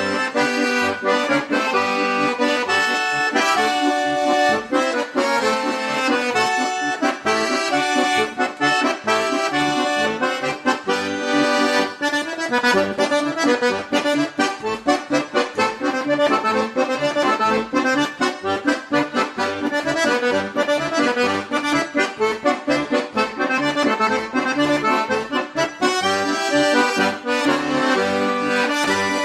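Accordion music with a steady beat.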